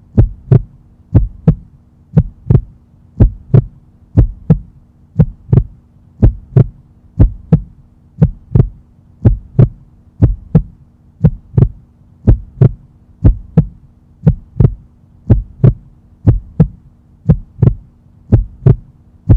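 Heartbeat sound effect: steady lub-dub double thumps repeating roughly once a second, over a low steady hum.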